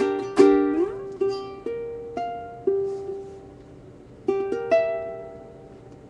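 Ukulele played fingerstyle: a strummed chord just after the start, then four single notes plucked about half a second apart, then a last chord about four seconds in that rings and fades away.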